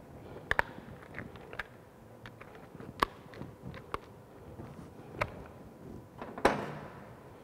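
Scattered knocks and clinks of metal pipe fittings and tools being handled on a workbench, with a louder clatter near the end.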